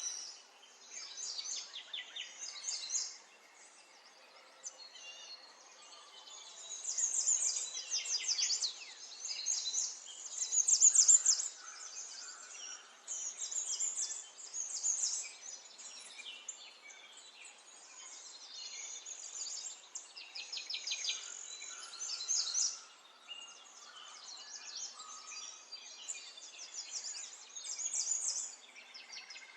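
Small songbirds chirping and twittering in a garden. Rapid runs of high chirps come in repeated flurries with short quieter gaps, and the loudest flurry is about eleven seconds in.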